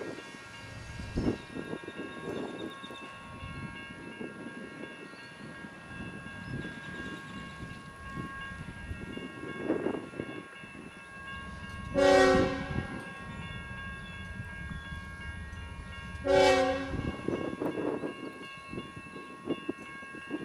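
Kansas City Southern freight train running by, with the lead GE locomotive's air horn sounding two short blasts about four seconds apart, past the middle of the stretch.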